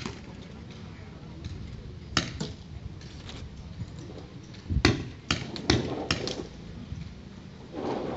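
Paintball markers firing: sharp single pops, one at the start, another about two seconds in, then a quick run of four shots about five to six seconds in.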